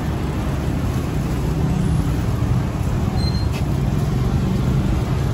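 Steady low rumble of street traffic, with a faint click about three and a half seconds in.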